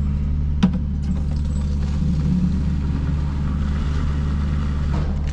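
A vehicle's engine and drive noise: a steady low drone while driving, with one sharp click about half a second in.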